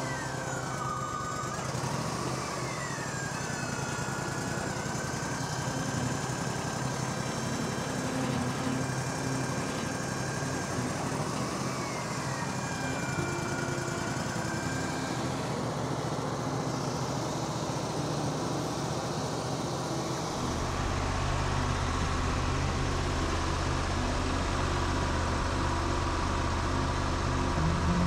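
Wood-Mizer LT40 sawmill's engine running steadily, with a hydraulic whine that twice drops in pitch and then holds as the hydraulic loader lifts the log onto the mill bed. Near the end the low engine rumble grows louder.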